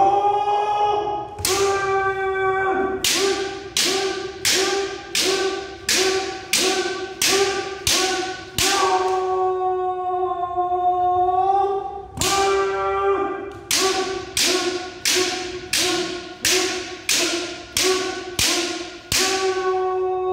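Kendo fencers shouting long, held kiai, several seconds each, broken by short pauses. Over the shouts, sharp clacks come in a steady rhythm of about one every 0.6 s.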